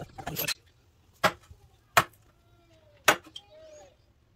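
A rubber mallet striking a wood chisel three times, roughly a second apart, chopping a mortise into a softwood board. A short rustle of a board being handled comes first.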